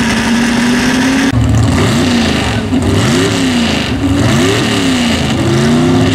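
Engines of 4x4 pulling trucks: one held at steady revs, then, about a second in, a truck's engine blipped several times, its pitch swooping up and down, before holding a steady, slowly climbing note near the end.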